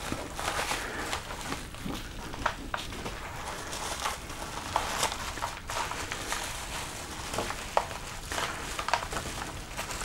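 Parcel packaging being handled: irregular rustling and crinkling with light clicks and knocks scattered throughout.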